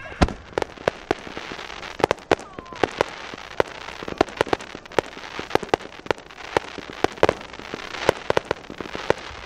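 Fireworks display: aerial shells and crackling stars bursting in a rapid, irregular string of sharp bangs and pops, several a second, over a continuous hiss.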